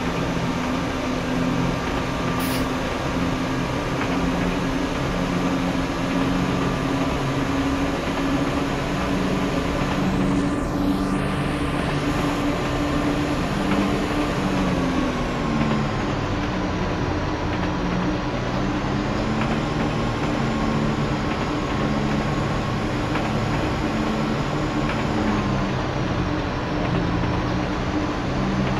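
Class 172 diesel multiple unit running, its diesel engine drone over a steady rumble. About halfway through the engine note dips, then rises and falls again as the engine speed changes.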